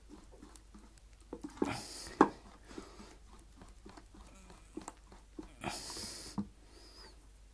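A spoon stirring thick soup in a metal saucepan, with irregular small knocks and scrapes against the pan and a sharper knock about two seconds in.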